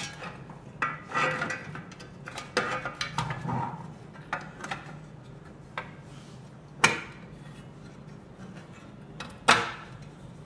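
Irregular clicks, taps and knocks of a manual string hopper machine's parts being handled and fitted back together, busiest in the first few seconds, with a sharp click about seven seconds in and another near the end.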